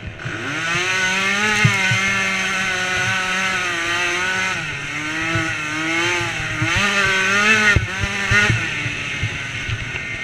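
Small 90cc engine of a DRR youth racing ATV revving hard under throttle. The revs climb just after the start, hold, dip a little before halfway, climb again and drop off sharply near the end, with a few knocks from the machine over bumps.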